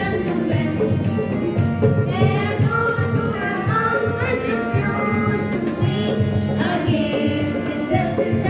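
Music: a song with a singing voice over a steady percussion beat.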